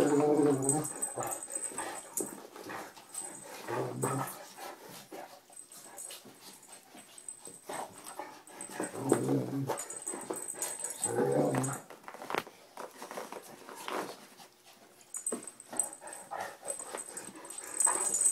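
Anatolian Shepherd's deep, bear-like play growls as he roughhouses gently with a small dog: a few grumbling bouts about a second long, the loudest at the start and others around a quarter, half and two-thirds of the way through, with scuffling between them.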